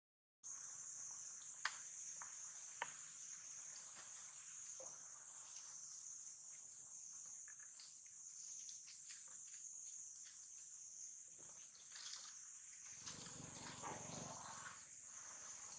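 A steady high-pitched drone of insects in the trees, with a few light clicks. About thirteen seconds in, a short rustle as a young macaque handles a plastic water bottle at its mouth.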